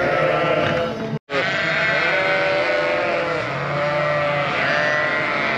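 A flock of ewes and lambs bleating together, many overlapping calls at different pitches, as the lambs and ewes call to find each other while mothering up. The sound cuts out for a split second about a second in.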